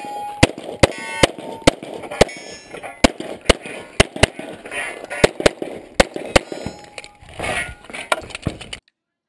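9mm Glock pistol fired in quick strings, about fifteen shots, mostly half a second to a second apart, with a brief ringing after some of them. Cuts off suddenly near the end.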